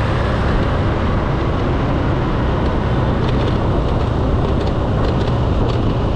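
Steady riding noise aboard a moving Honda scooter in city traffic: the scooter's engine and the rush of the ride, mixed with surrounding motorbikes and cars, with the most weight in a low rumble.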